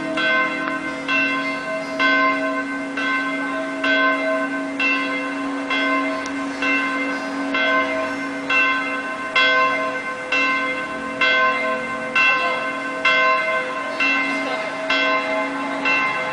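A church bell tolling steadily, about one strike a second, each strike ringing on over a lasting low hum.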